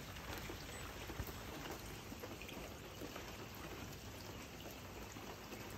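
Steady rain falling on a wet, puddled patio, heard through an open door.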